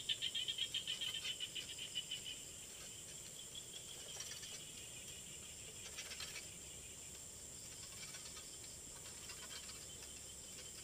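Night insects calling: a fast pulsing trill of about seven chirps a second for the first two seconds, then weaker and steadier, over a steady high-pitched insect drone. There are brief faint noises about four and six seconds in.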